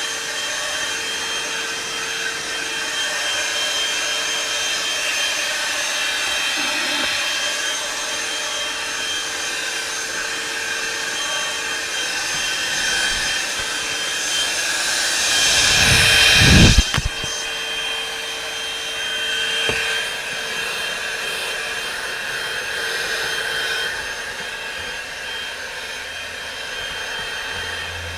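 Einhell PXC TE-VC 18 Li cordless handheld vacuum cleaner running steadily with a high whine. About halfway through, a loud rumble swells and breaks off with a sharp snap, and a smaller snap comes a few seconds later.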